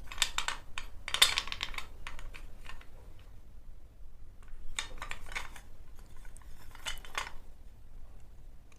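Cutlery clicking and scraping in two clusters of quick strokes, the first in the opening few seconds and the second about five to seven seconds in.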